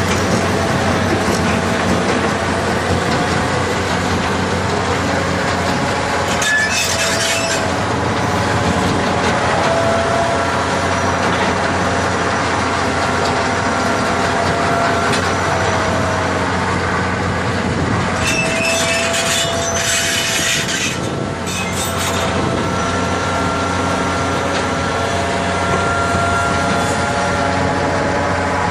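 A large digger working: a heavy engine running steadily, with whining tones that rise and fall. Two stretches of harsher, high noise break in, about seven seconds in and again around twenty seconds in.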